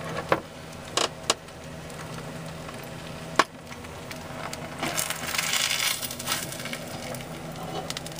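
Metal spatula clicking and scraping against a cast iron skillet as egg-in-toast is worked loose and flipped, with several sharp clicks in the first few seconds. Frying sizzle swells for about a second and a half around the middle.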